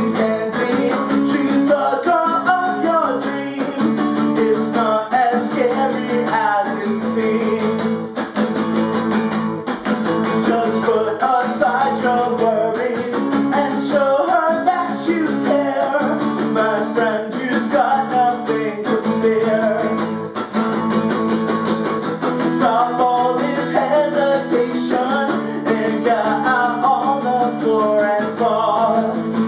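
A man singing a song live to his own strummed acoustic guitar.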